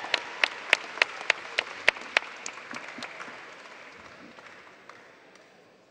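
Audience applauding, with one person's loud claps close by at about three a second that stop a little over two seconds in; the applause then dies away.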